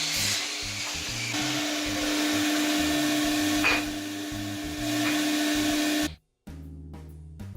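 Electric power saw running with a steady motor hum as it cuts a beech hardwood board, over background music. The saw noise cuts off abruptly about six seconds in, leaving only the music.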